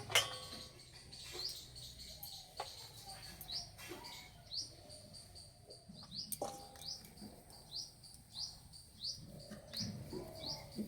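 A small bird chirping over and over, each call a short rising chirp, about one or two a second. A few sharp knocks come through, the loudest at the very start and another near the middle, as dough is cut into portions.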